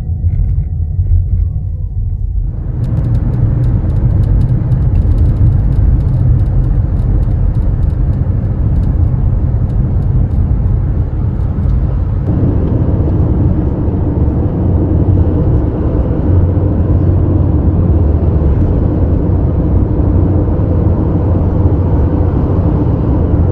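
Road and tyre noise inside a 2021 Toyota Prius Prime's cabin while driving: a steady low rumble that grows louder about two and a half seconds in. Over the next several seconds a rapid, faint high-pitched ticking comes and goes, the kind of door-panel rattle the owner complains of.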